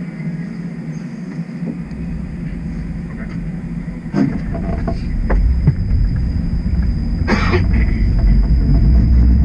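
Toronto streetcar pulling away from a stop, heard from inside: a low rumble of the motors and wheels starts a couple of seconds in and grows steadily louder, under a faint steady high whine. A few short knocks come around the middle, and a brief hiss follows about seven seconds in.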